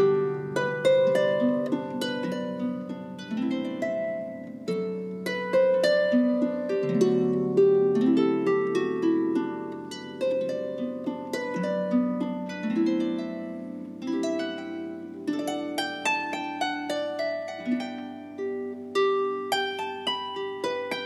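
Solo Celtic harp playing: a plucked melody over lower bass notes, each note ringing on and fading as the next is plucked.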